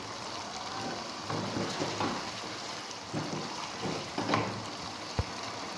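Chicken in masala sizzling steadily in a frying pan while a spoon stirs it, with a few scrapes of the spoon against the pan. It cuts off suddenly near the end.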